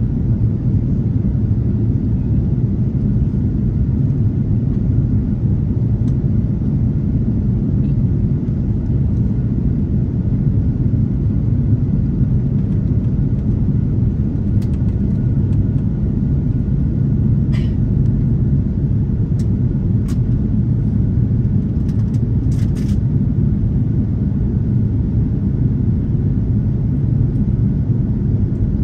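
Steady low rumble of engine and airflow noise inside the cabin of an Airbus A330-343 airliner in flight, with a few faint clicks a little past the middle.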